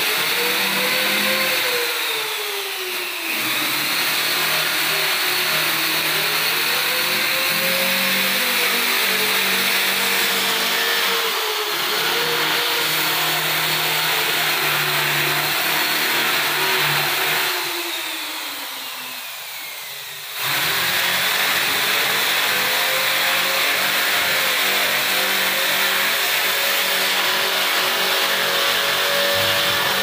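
A motor-driven machine runs steadily, its whining pitch sagging and recovering several times. It winds down about eighteen seconds in and comes back up sharply just after twenty seconds.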